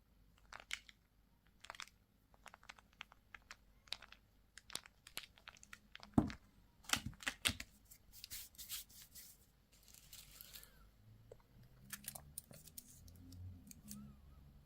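Candy or toy packaging being crinkled and torn open: a run of small crackles and clicks, with two longer tearing rips about eight and ten seconds in.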